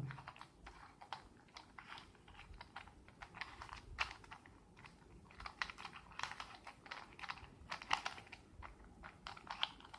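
Rubik's cube faces being turned by hand: irregular runs of short plastic clicks and clacks as the layers snap into place.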